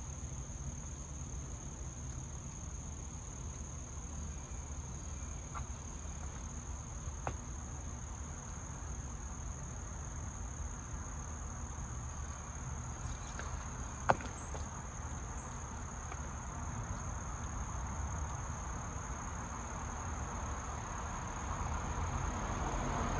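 Insects shrilling steadily on one high note over a low background rumble, with a single sharp click about fourteen seconds in.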